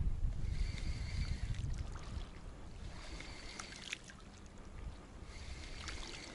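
Wind buffeting the microphone, easing after a couple of seconds, with a spinning reel whirring in two short spells of winding and a few light clicks of the tackle.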